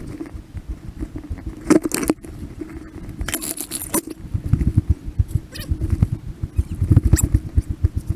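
Field audio sped up to four times speed: a fast, jittery run of low thuds and rustling from movement, with short high-pitched squeaky bursts about two seconds in and again around three and a half seconds in.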